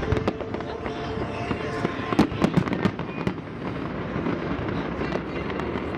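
Fireworks going off: a string of sharp bangs and pops over a continuous background of more distant explosions, densest about two to three seconds in.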